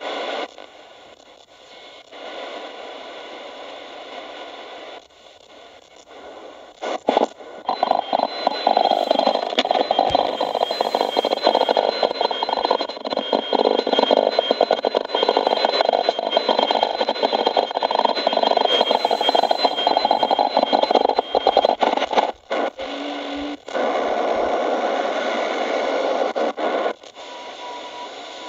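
A portable shortwave radio's small loudspeaker hissing with static as it is tuned across the SW1 band between stations. Through the middle stretch two steady high-pitched whistles sit over the noise, and the static cuts out and back a couple of times near the end.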